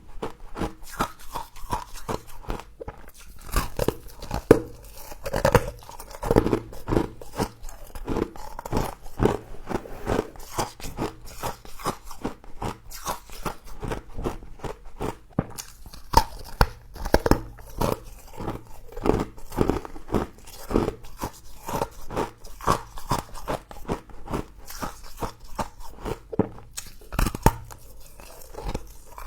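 A person biting into and chewing crunchy frost close to the microphone: a dense, irregular run of crackling crunches.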